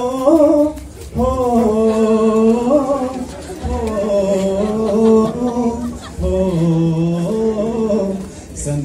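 A man singing solo, unaccompanied, a slow melody in long held notes, phrase after phrase with short breaths between.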